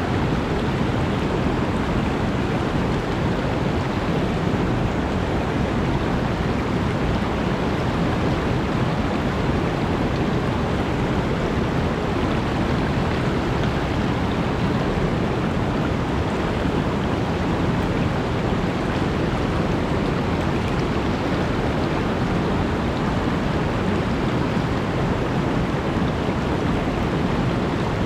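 Mountain stream rushing steadily just below a waterfall: a continuous deep roar of fast-flowing water with no change in level.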